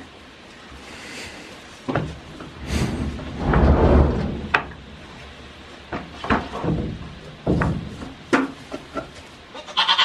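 Irregular wooden knocks and thumps from goat kids' hooves against the wooden stall wall and boards as they stand up at the hay rack, with a longer scuffle about four seconds in. A goat bleats briefly at the very end.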